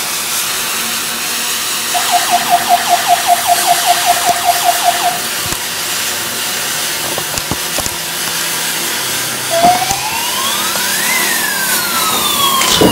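A firework fountain hissing steadily as it sprays sparks, over an electronic toy fire truck siren. The siren gives a pulsing beep about five times a second for about three seconds, then near the end a wail that rises and slowly falls.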